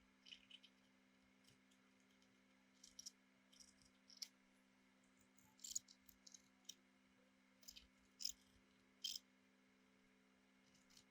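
Faint, scattered small clicks and taps of small objects being handled, about a dozen spread irregularly, over a low steady electrical hum.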